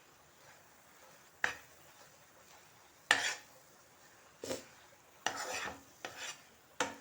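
Spatula scraping and stirring thick dates halwa in a pan, in about six separate short strokes with a longer scrape about five seconds in. The halwa is cooked to the stage where it holds together and comes away from the pan.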